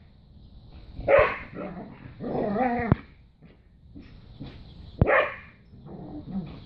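A border collie and an American Eskimo dog play-fighting, giving three loud barks and growls: about a second in, a longer one around two to three seconds in, and another about five seconds in, with quieter huffs and scuffles between.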